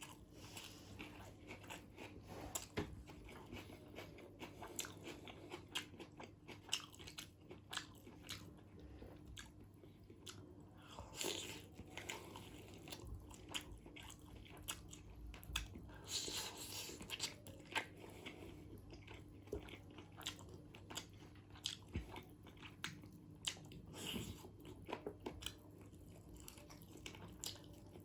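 Close-miked eating of chicken biryani: mouth-smacking chewing with frequent small crisp clicks and crunches, irregular throughout.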